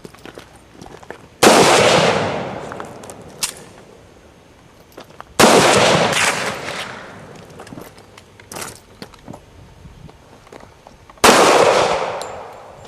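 Three shotgun shots, about four and then six seconds apart, each sharp crack trailing off in a long echo.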